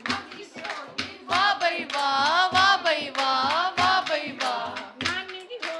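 Women singing a traditional Punjabi wedding folk song (vadhaiyan) in phrases with short breaks, to the beat of a dholki hand drum and hand-clapping.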